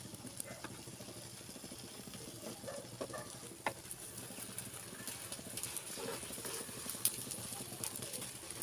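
A metal spatula scraping and tapping against a nonstick frying pan as a rolled omelette is pushed along, with a few sharper clicks, the loudest about seven seconds in, over a faint steady hiss.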